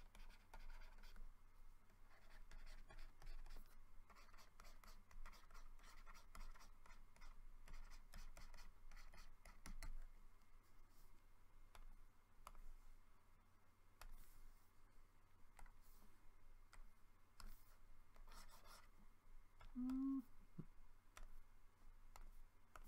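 Faint scratching and light tapping of a stylus on a graphics tablet as brush strokes are painted. A brief low hum comes near the end.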